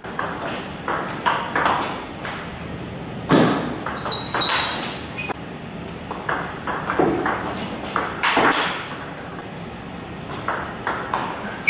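Table tennis rally: the ball clicking sharply off carbon-ply Butterfly Super ZLC blades with Tenergy 05 rubber and bouncing on the table in quick alternation. A few hits, about three seconds in and again near 8.5 seconds, are louder than the rest.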